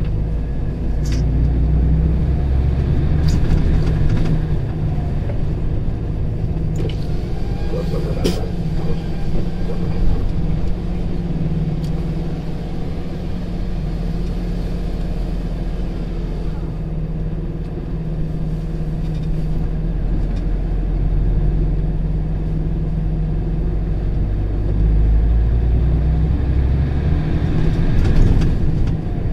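Engine and road noise heard inside a moving vehicle's cab: a steady low rumble, with a few short clicks in the first several seconds.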